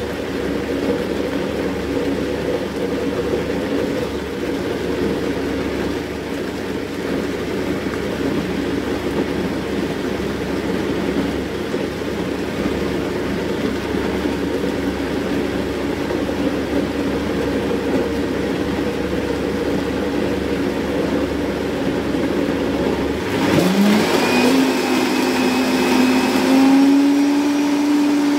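Vitamix blender motor running steadily while blending soaked sea moss with water into a gel. Near the end the motor speeds up, with a rising whine that then settles at a higher, slightly louder pitch.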